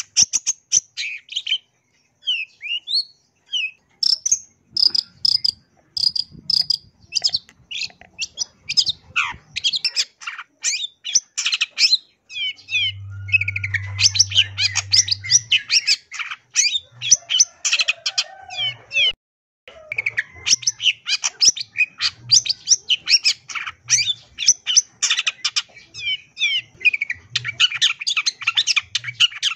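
Long-tailed shrike (cendet) singing a fast, varied, chattering song packed with mimicked calls of other birds, in long runs broken by short pauses. A brief low hum sounds under it about halfway through.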